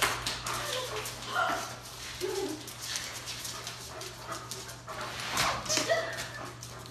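A dog whining and giving short yips and woofs in quick, broken calls during play.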